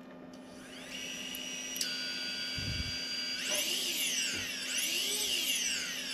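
DJI Avata's brushless motors spinning with the propellers off: a high whine comes in about a second in, holds steady, then rises and falls in pitch several times as the throttle is worked. This is a bench motor test after the GPS module repair, and the motors run.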